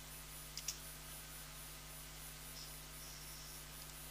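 Quiet room tone with a steady low electrical hum and faint hiss, broken by one faint click about two-thirds of a second in.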